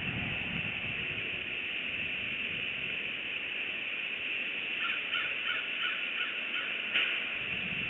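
A bird calling: a quick run of about eight short, evenly spaced notes over the last few seconds, over a steady high hiss, with a single sharp click near the end.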